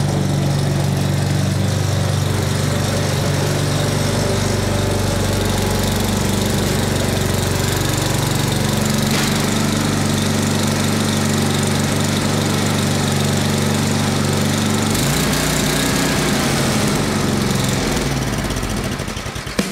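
Single-cylinder 8 hp Briggs & Stratton engine of a 1979 Toro 826 snowblower running steadily. Its note shifts about fifteen seconds in.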